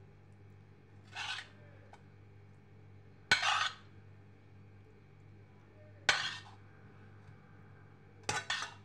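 A metal spoon knocks and scrapes against a dish while spooning out pizza topping: four short strokes, each a clink followed by a brief scrape, the last a quick double stroke near the end.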